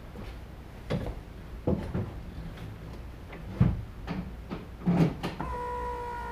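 Several knocks and clicks from parts being handled. Then, about five seconds in, a steady electric whine starts and holds as power is applied to the Arctic Cat Wildcat side-by-side's electrical system.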